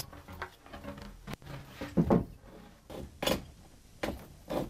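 A few irregular wooden knocks and clunks of framing lumber being handled and set in place.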